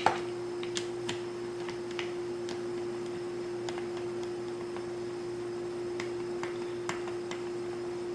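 A screwdriver clicking and tapping as it seats and starts a screw in a chainsaw's plastic handle housing: a sharp click at the start, then irregular light ticks, over a steady hum.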